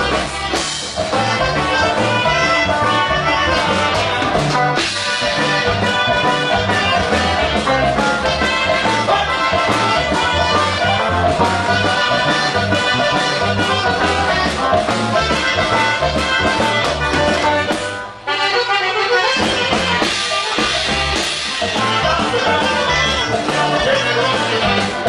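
Norteño band playing a huapango, led by accordion. The music dips briefly about eighteen seconds in.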